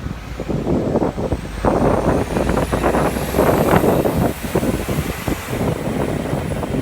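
Heavy wind buffeting the phone's microphone over a steady low rumble, growing louder about two seconds in, with a faint high whine rising slowly in the background.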